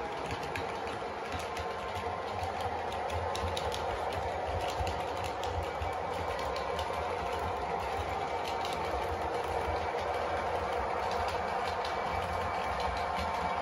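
OO gauge model diesel locomotive running along the track: the engine sound from its DCC sound decoder plays through a small speaker, over the whirr of its motor and light scattered clicks of wheels on the rails.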